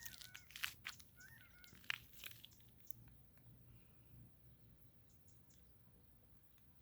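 Gambel's quail giving a few short, arching calls, mixed with sharp crunching clicks, over the first two seconds or so; after that, only faint desert quiet.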